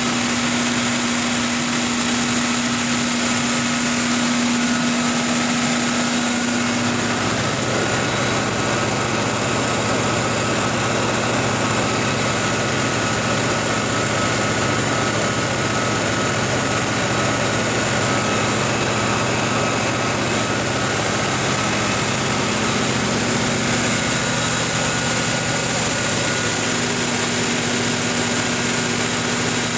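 Kohler 1000REOZDD generator set's MTU 16V2000 V16 diesel engine running at a steady speed, a loud even drone with a constant high-pitched whine over it. A low hum in the drone drops away about seven seconds in and comes back near the end.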